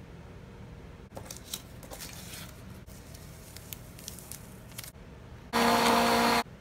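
Handheld battery milk frother switched on in a mug of tea, whirring steadily for about a second near the end, blending the butter and cocoa into a froth; it is the loudest sound and stops abruptly. Before it, faint clicks and crinkly rustling as ingredients are handled over the mug.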